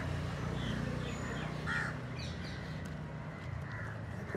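Crows cawing, two short calls about two seconds apart, over a steady low background rumble.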